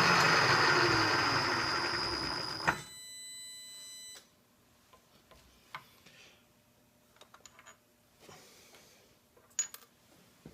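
Milling machine motor and spindle winding down after a cut: the running noise fades and drops in pitch over nearly three seconds and ends with a click. A brief steady high whine follows for about a second and a half, then only a few faint clicks and taps.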